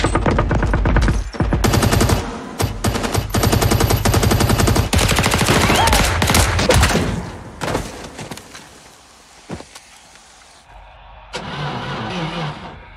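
Automatic rifle fire in long, rapid bursts for the first seven and a half seconds or so, then a quieter stretch with a few scattered bangs. Near the end comes a short hissing burst as a fire flares up with sparks.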